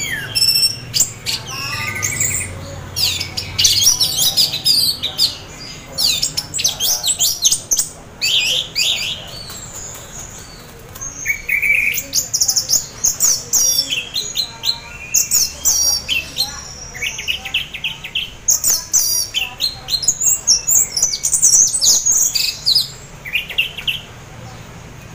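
Orange-headed thrush singing a long, varied run of quick high chirps and trills, with a short pause about ten seconds in. It is half in breeding condition, a song used to draw other orange-headed thrushes into singing.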